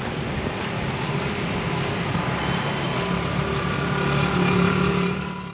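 Road traffic on a wet city street: a steady wash of engines and tyre noise with engine hum, growing a little louder about four seconds in, then cutting off suddenly.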